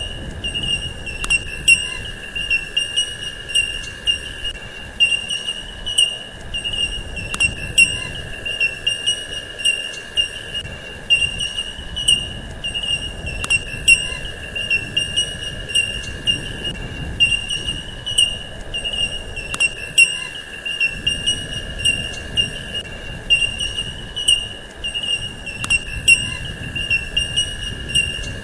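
Steady high-pitched chirring drone of two unbroken tones, insect-like. A faint tick repeats about every six seconds as the same stretch of recording loops.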